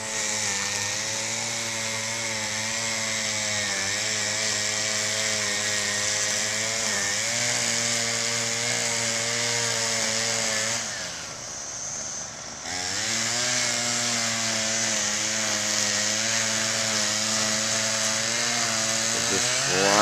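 String trimmer (weed eater) engine running at a steady high speed, easing off briefly a little past halfway and then revving back up. Its steady hum resembles the cicadas' own buzz and is drawing the swarming cicadas onto the operator.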